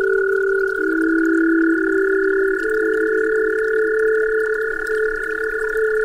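Steady pure electronic tones held as a drone: a high pair of tones over a lower group whose notes shift in steps every second or two.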